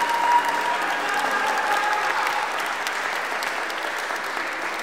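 Audience applauding, a dense patter of many hands clapping that eases off slightly toward the end.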